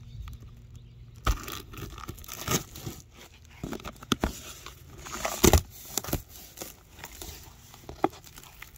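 Packing tape and plastic wrap on cardboard boxes being slit with a knife and torn open, with crinkling plastic and cardboard flaps scraping. The rips are irregular, with a sharp one about a second in and the loudest about five and a half seconds in.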